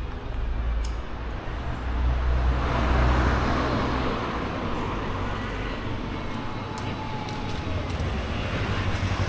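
Street traffic: a motor vehicle passes close by, its tyre and engine noise swelling about three seconds in and then fading, over a steady low engine rumble.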